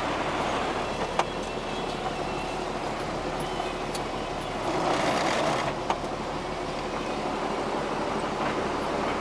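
Tractor engine running steadily at road speed, heard from inside the cab, with a brief louder rush of noise about five seconds in and two sharp clicks, one about a second in and one near six seconds.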